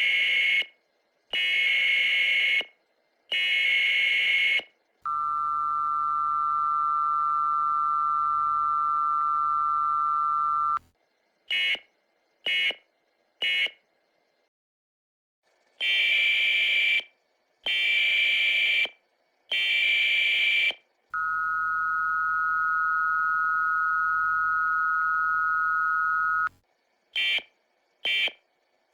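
US Emergency Alert System signal played sped up, at about one and a half times normal speed. Three loud screeching data bursts of the SAME header come first, then the steady two-tone attention signal for about five seconds, then three short end-of-message bursts. The whole sequence plays twice, the second time slightly higher in pitch.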